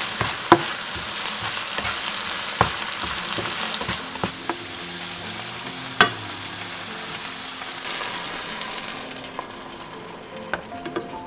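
Onions and dill sizzling in oil in a frying pan while a spatula stirs them, with a few sharp taps and scrapes of the spatula on the pan. The sizzle is quieter in the second half.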